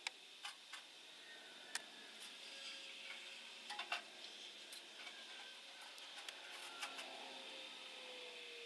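Faint, scattered clicks and light taps at irregular intervals, over a low steady hiss.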